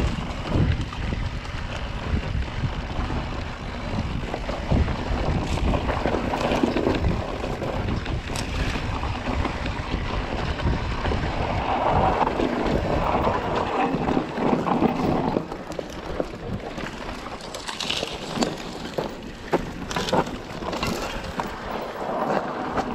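Wind buffeting the microphone of a camera on an electric mountain bike riding down dirt singletrack, a steady rushing rumble, with scattered knocks and rattles as the bike rolls over the trail. The low rumble eases about two-thirds of the way through.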